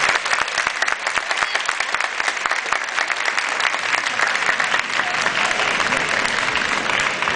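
Audience applauding: dense, continuous clapping that eases a little over the last few seconds.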